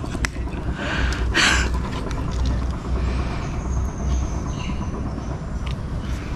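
Steady low rumble of wind buffeting the microphone, with rustling and small clicks from hands handling a fishing line and hook, and a short burst of rustle about a second and a half in.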